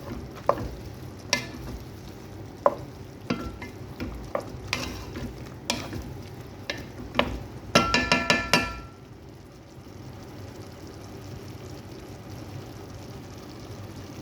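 Stir-frying sliced chicken with vegetables: a utensil clanks and scrapes against a metal pan over a steady sizzle. About eight seconds in comes a quick run of ringing taps on the pan, after which only the sizzle goes on.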